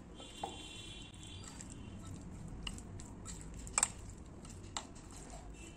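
Potatoes being stirred through thick flour-and-cornflour batter in a glass bowl: a soft, wet squishing, with a few short light clicks, the loudest about four seconds in.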